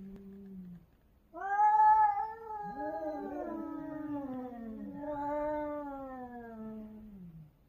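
Two cats caterwauling at each other in a territorial standoff: long, wavering yowls that slowly sink in pitch. One yowl tails off near the start; after a short pause a loud one begins, briefly overlapped by the other cat's call, and the yowling runs on until it fades near the end.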